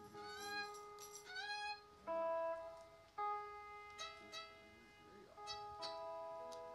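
A live country band's instruments playing softly: held notes with a few upward sliding notes, and new notes coming in about two and three seconds in, with no singing.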